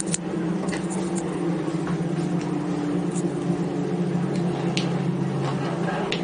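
A few sharp clicks and taps of small parts being handled while an electric die grinder is worked on, over a steady low hum.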